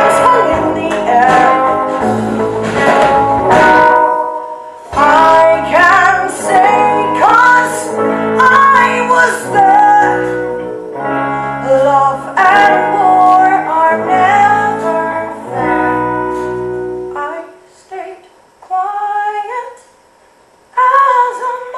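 Live stage-musical performance: a band with a singer, recorded from the audience in a theatre. About 17 seconds in, the band drops out and a voice goes on alone in short sung phrases.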